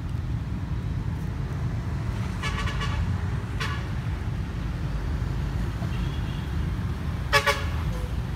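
Steady low rumble of a boat under way on the river, with short horn toots about two and a half seconds in and again near four seconds, and a louder double toot near the end.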